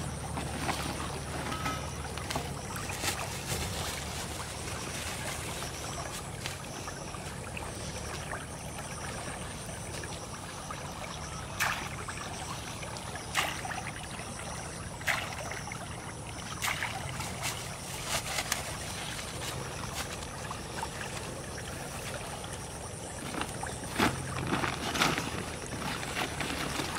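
Water running in a small, shallow field canal, with a low steady hum underneath. Short sharp knocks and rustles of handling come now and then, several around the middle and a cluster near the end.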